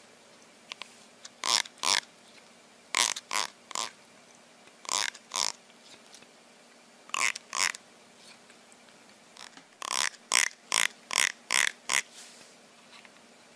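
A finger strumming the teeth of a plastic comb in short rasps, mostly in pairs and threes, then a quicker run of about six near the end.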